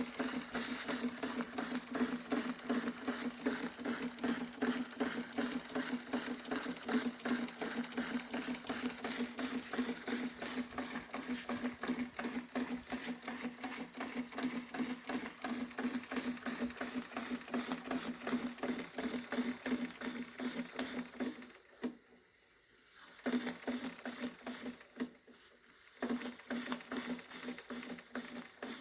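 Märklin 4112 toy steam engine, fired with 80% spirit, running fast with an even, rapid ticking beat over a steady hum. The sound drops away twice briefly near the end.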